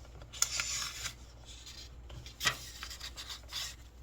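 Paper rustling and rubbing in three short strokes, a longer one about half a second in and two brief ones later, the sound of a book's page being handled and turned during a pause in the reading.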